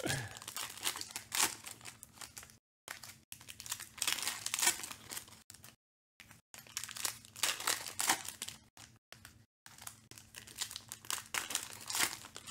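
Foil wrappers of Panini Select football card packs crinkling and tearing as they are opened by hand: a run of irregular crackles and rustles with short pauses.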